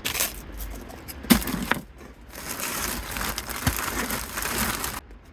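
A puffed rice cake being crunched and chewed: a few sharp crunches in the first two seconds, then about two and a half seconds of steady crackling that stops suddenly.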